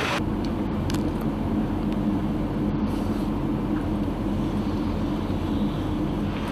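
Steady low rumble of a car heard from inside its cabin, setting in abruptly just after the start, with a few faint ticks.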